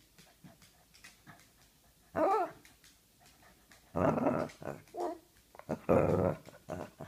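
Boston terrier vocalizing to demand a game of fetch: a short whine that rises and falls about two seconds in, then two longer, rougher grumbling growls about two seconds apart.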